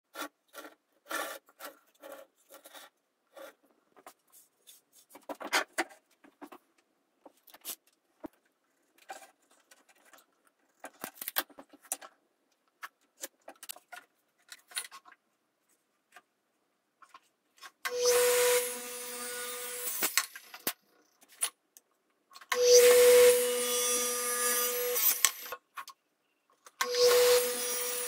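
Light knocks and clatter of wood being handled. Then an electric compound miter saw is started three times, its motor running with a steady whine as the blade cuts through a wooden board.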